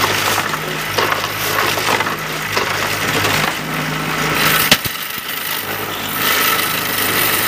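Damp concrete mix scraped and pressed into a steel hollow-block mould, a gritty scraping over the steady hum of the block machine's motor, with a few knocks of the scraper on the steel and a sharp one about two-thirds of the way through.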